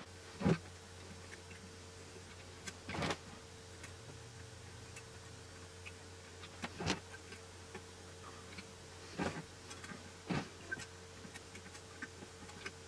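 Scattered light clicks and ticks, about six in all, of fingers bending and handling wires on a Smartdrive washing-machine stator, over a faint steady hum.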